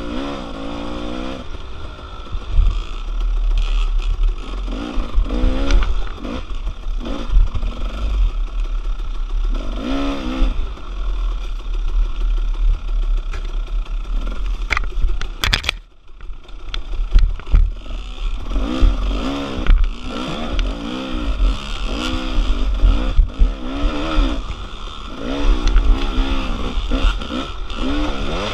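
Dirt bike engines revving up and down repeatedly as off-road motorcycles ride singletrack trail, with clattering over rough ground and a steady wind rumble on the microphone. The sound cuts out briefly about halfway through.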